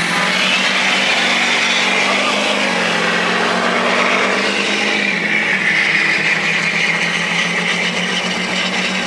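Pickup trucks driving on the road, heard through an open cab window: a steady engine note over road and wind noise, the engine note stepping down slightly in pitch twice.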